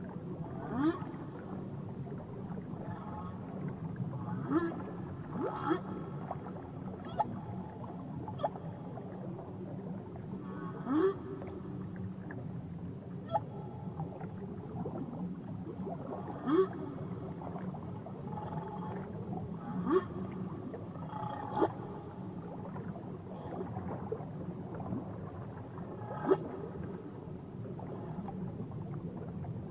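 Whale calls heard underwater: about a dozen short upward-sweeping calls and sharp clicks, spaced irregularly over a steady low hiss of water.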